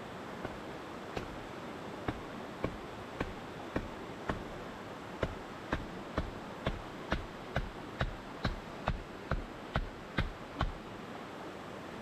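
Repeated dull blows on the top of an upright bamboo post, driving it into the ground: about twenty strikes, spaced out at first and then about two a second from about five seconds in, stopping near the end, over a steady rushing background.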